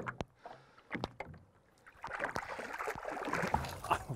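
A few light knocks against an aluminum boat hull, then, about two seconds in, water splashing at the boat's side as a lake trout is released from the angler's hands.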